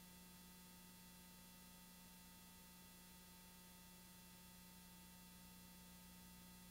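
Near silence: only a faint, steady electrical hum with a thin whine above it, unchanging throughout.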